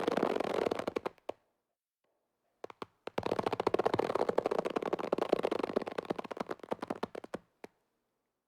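Cartoon sound effect: a rapid, fluttering rattle that dies away about a second in. After a pause and a few single clicks, a longer run of quick rattling pulses lasts about four seconds and stops abruptly.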